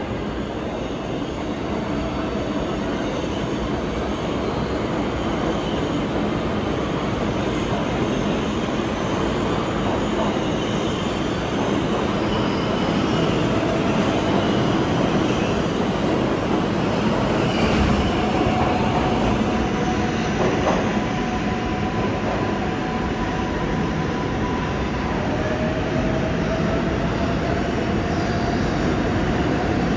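R188 subway train running along the platform and pulling out of the station, the wheels and cars making a steady, loud noise. Thin wheel squeals come and go over the second half.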